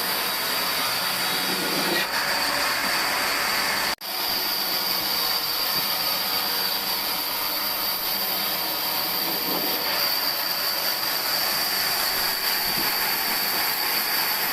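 Sawmill saw cutting old pine timber: a loud, steady rushing noise with a high whine over it, broken once by a brief gap about four seconds in.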